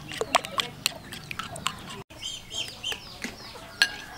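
Metal spoon stirring a thick batter in a ceramic bowl, clicking and scraping against the bowl, with chickens clucking in the background.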